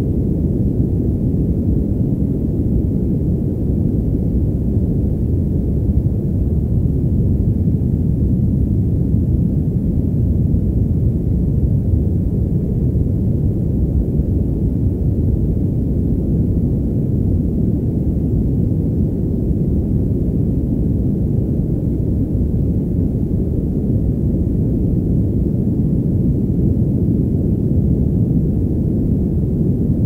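Steady 'padded' white noise, muffled so that the hiss is cut off above the low range and sounds like a deep, even rush.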